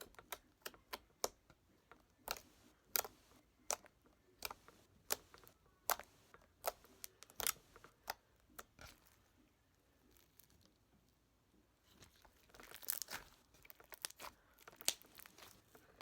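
Slime being squished and stretched by hand, giving off irregular sharp pops and clicks. The pops stop for about three seconds midway, then return as a denser run of crackling.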